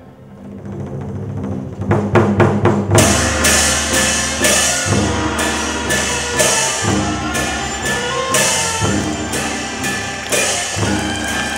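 Chinese opera percussion: a quickening run of drum strokes about two seconds in, building into loud cymbal and gong crashes every half second to a second, over sustained instrumental music.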